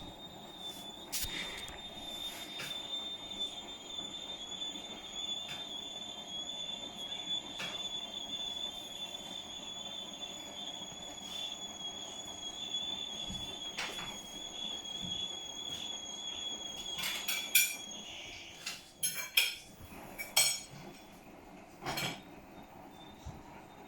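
Hotpoint appliance making a continuous high-pitched squeaking that wavers slightly. Near the end the squeak drops out while several sharp clinks and knocks sound, then it returns.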